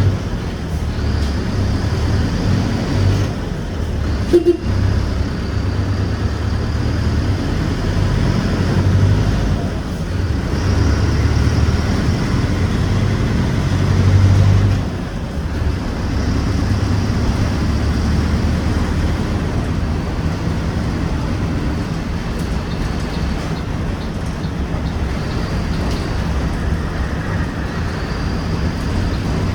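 Mercedes-Benz OF-1721 bus's four-cylinder turbodiesel running while the bus drives, its note swelling and easing with the throttle. There is a short click about four and a half seconds in, and the engine eases off sharply about fifteen seconds in.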